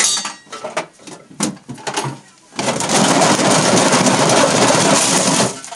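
A large square sheet-metal tin knocking and clattering as it is picked up and handled. About two and a half seconds in it breaks into a loud, continuous rattle as it is shaken, which stops suddenly near the end.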